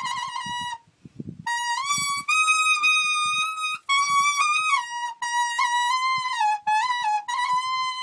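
A tree leaf held to the lips and blown as a reed, playing a high, reedy melody in short phrases. The tune stops for about half a second near one second in, then rises a step and carries on with small breaks between notes.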